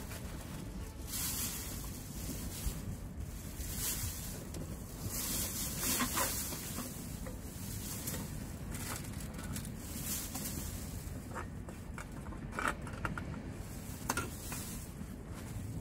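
A thin plastic carrier bag rustling and crinkling in repeated short bursts as litter is handled and stuffed into it, with a few sharp clicks near the end. Steady wind rumbles on the microphone underneath.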